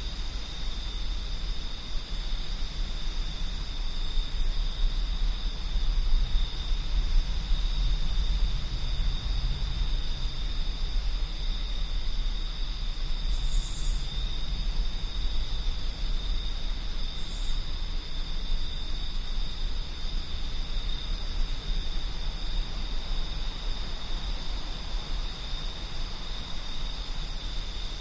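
Wind blowing in low, uneven gusts, with crickets trilling steadily in two high tones. Two brief high chirps come near the middle.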